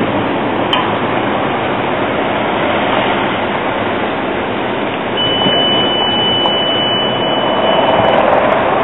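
CAF Urbos 3 tram creeping into a street platform and slowing almost to a stop, over steady city traffic noise. A steady high-pitched tone sounds for about three seconds, starting a little past halfway.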